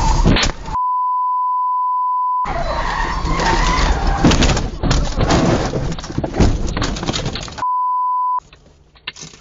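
Car crash heard from inside the car: loud jumbled crashing and rattling noise, cut off twice by a long, steady censor bleep, the second one shorter. The noise drops to a faint level with a few clicks near the end.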